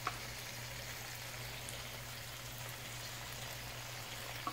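Garlic butter sauce sizzling steadily in a frying pan of boiled crawfish and shrimp, with a light click near the start and another near the end.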